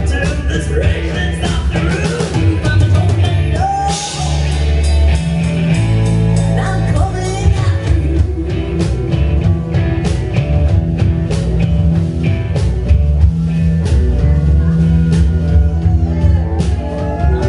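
Live rock band playing, with electric guitars, bass and a steadily beating drum kit, and a woman singing through the first half before the band carries on without the vocal.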